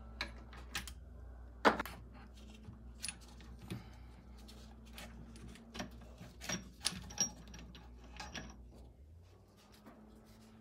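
Metal clicks and clinks of a 2006 Yamaha YZ250's transmission gears and shift forks being worked loose and lifted out of the crankcase half, parts knocking together. A sharp clack comes about two seconds in, and a cluster of ringing clinks between six and seven seconds.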